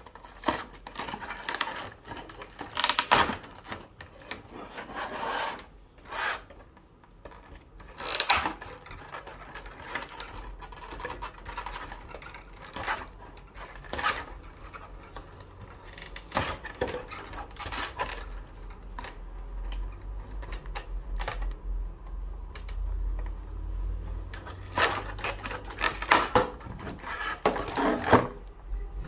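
Figure packaging being handled: irregular taps, clicks, scrapes and rustles of cardboard and plastic, with a low rumble for several seconds past the middle.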